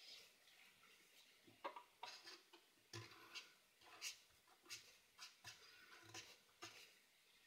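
Faint scratching of a brush-tip marker on paper: about a dozen short, uneven strokes, one or two a second, as shading is laid in.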